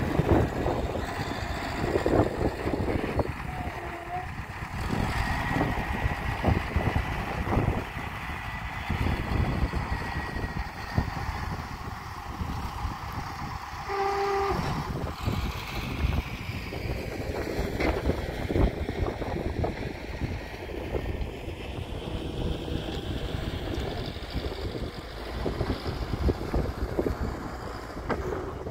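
Case 580L backhoe loader's diesel engine running as the machine pushes and levels dirt, a continuous rumble with uneven surges.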